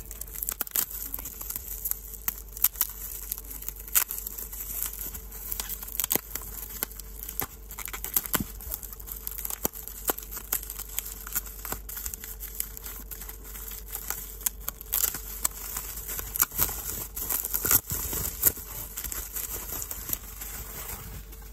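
Plastic bubble wrap crinkling and crackling as it is pulled off a small parcel by hand, with irregular sharp crackles throughout.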